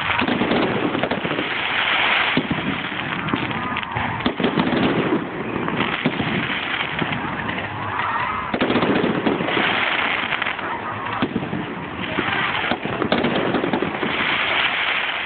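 Fireworks display: dense crackling and many sharp bangs that swell and ease every couple of seconds without letting up, recorded on a phone's microphone.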